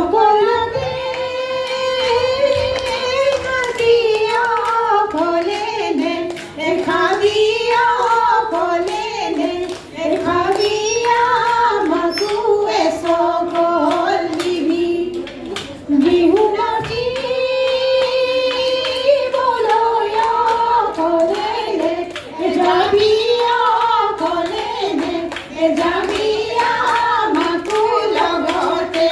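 High female singing of an Assamese Jeng Bihu song, one melodic line of held, wavering notes with short breaks between phrases, accompanied by steady rhythmic hand clapping.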